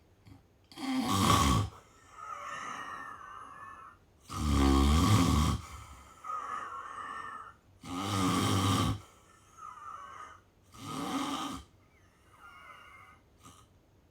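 A sleeping person snoring: four loud snores about three to three and a half seconds apart, with softer breath sounds between them.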